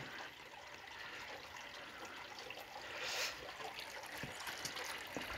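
Faint, steady, hiss-like background noise, with a brief soft rustle about three seconds in.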